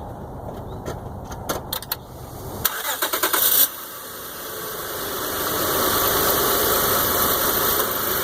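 2006 Honda Odyssey's 3.5-litre V6 test-started after a knock sensor replacement: a few clicks, then the starter cranks for about a second, and the engine catches almost at once. It settles into an idle that is nice and smooth, with no noises.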